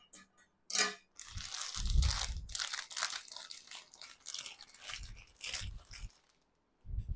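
Clear plastic saree packets crinkling and rustling as a packed cotton saree is pulled from a stack and handled, with a few dull bumps.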